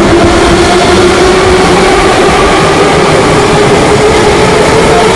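Moscow Metro train running through an underground station, loud, with an electric motor whine that rises steadily in pitch over a rumbling wheel noise.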